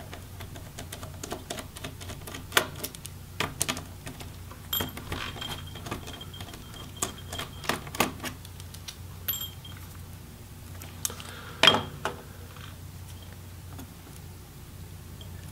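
Scattered small clicks and taps of a hand screwdriver and tiny screws as the motherboard and hinge screws come out of an opened laptop chassis, with one sharper, louder click about three quarters of the way through.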